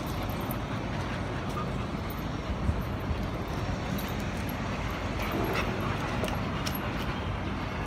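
A beagle and a larger mixed-breed dog play-fighting, with a brief dog vocal sound about five and a half seconds in, over a steady low rumble.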